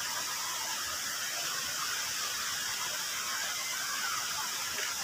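Steady, even high-pitched hiss of outdoor background noise, with no distinct events.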